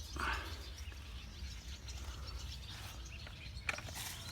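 Faint bird chirps over a steady low background rumble, with a couple of short, sharp clicks near the end.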